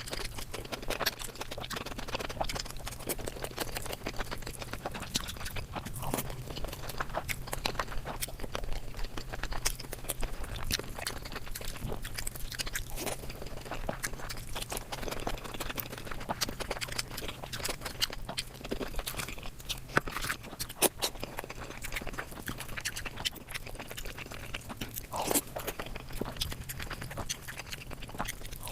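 Close-miked ASMR eating: a person chewing and biting food, with many irregular crunches and wet mouth clicks.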